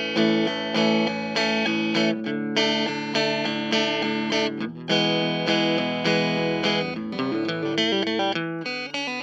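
Electric guitar playing a steady rhythm of plucked notes, about two strokes a second, moving to a lower pattern about halfway through.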